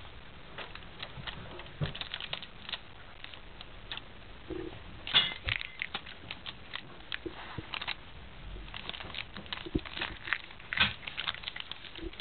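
Cat gnawing and biting on a thin stick: irregular crackly clicks of teeth on the stick, with rustling against the cushion. The loudest clusters come about five seconds in and again near eleven seconds.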